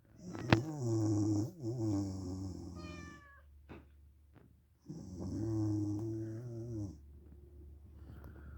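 A woman snoring: two long, droning snores with breathy hiss over them, the first about three seconds long with a few short rising whistles near its end, the second about two seconds long starting about five seconds in. A sharp click about half a second in.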